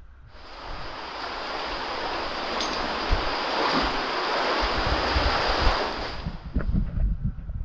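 Rushing floodwater in a river cave: a loud, steady roar of water that builds over the first couple of seconds and cuts off suddenly about six seconds in, with low thumps underneath.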